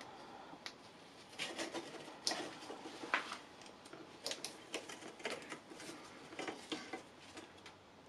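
Faint, scattered metallic clicks and taps of hand tools being handled: a screwdriver bit pushed into an angled bit driver with a magnetic bit holder, then set onto a stubborn screw on the scooter's speedometer cable hanger.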